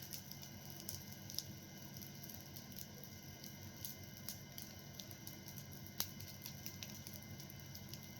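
Fire burning and crackling, with irregular sharp pops and one louder pop about six seconds in.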